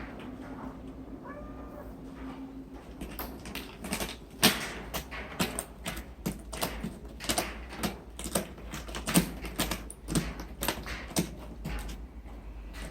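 A cat gives a short faint meow about a second in. From about three seconds on comes a long run of irregular sharp clicks and taps, a few a second.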